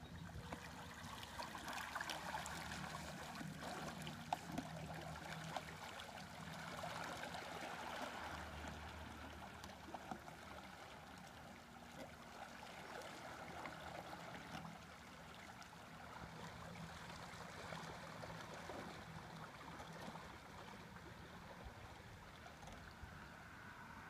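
Small waves lapping and trickling against the stony edge of a lake, a faint, steady wash of water with a few light clicks.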